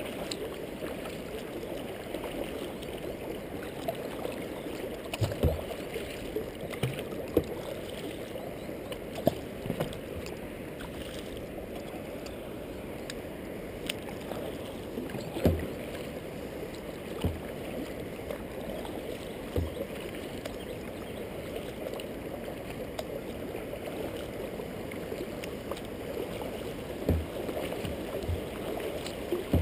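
Kayak being paddled on flat water: a steady, muffled swish and lapping of water around the hull and paddle, with a few sharp knocks at irregular intervals a few seconds apart.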